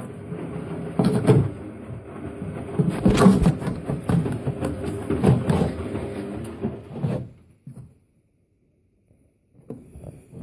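Siemens washing machine running, its drum tumbling with a rumble, uneven thumps and clatter; the sound cuts off abruptly about seven seconds in.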